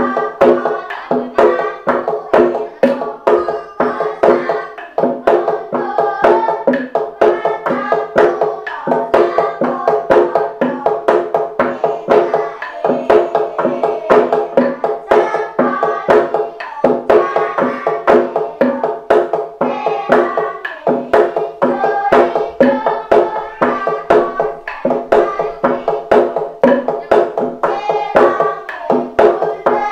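Gejog lesung: long wooden pestles striking a wooden rice mortar in an interlocking rhythm, a dense run of hollow, ringing knocks. The pattern repeats in phrases of about four seconds, each closed by a short break.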